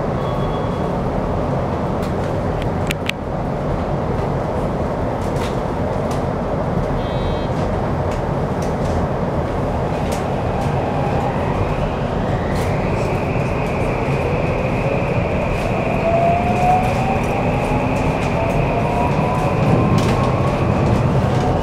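Inside a Toei 5500 series train car: the Mitsubishi hybrid SiC VVVF inverter starts up about ten seconds in. A steady high tone comes in, and the traction motors whine, several tones rising in pitch as the train pulls away and accelerates, over the steady rumble of the car.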